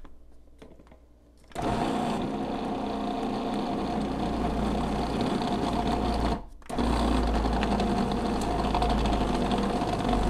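Food processor motor kneading a yeast dough, switching on about a second and a half in and running with a steady hum and a constant whine. It cuts out briefly just past halfway and starts again.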